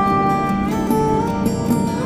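Background music: a melody of long held notes that step to a new pitch twice, over a plucked-string accompaniment.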